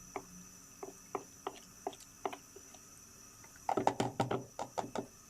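A spoon tapping against a bowl: light single taps about every half second, then a quick run of louder taps near the end as custard powder is mixed into the milk.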